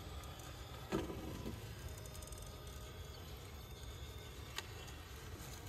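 RC crawler's brushless motor (Castle 1412 3200KV on a Copperhead 10 ESC) whining faintly at crawl speed as the truck picks its way over rocks. A knock sounds about a second in and a faint click comes near the end.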